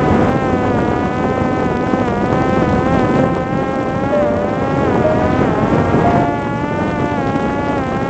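Parrot Disco fixed-wing drone's electric pusher motor and propeller whining in fast flight, over a rush of air, heard close from the drone's onboard camera. The pitch wavers and dips briefly twice near the middle.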